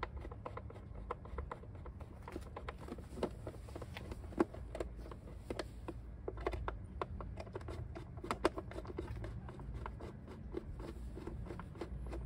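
Scattered light clicks, taps and scrapes of hands working the air filter housing of a Yamaha YBR 125 motorcycle, over a low steady rumble.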